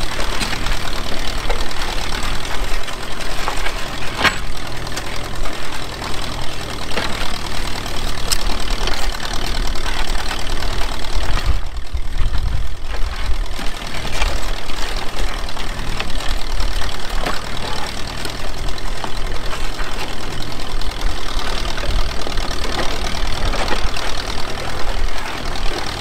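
Ferguson TVO 20 tractor engine running steadily on TVO (kerosene), with an even low beat and a few sharp clicks.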